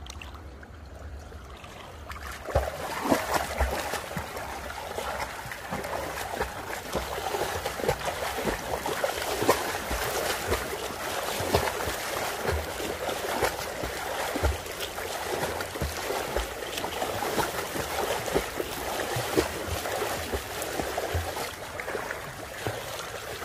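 Pool water splashing and churning under a swimmer's front-crawl arm strokes and kicks. It picks up about two and a half seconds in, then goes on as a steady run of irregular splashes.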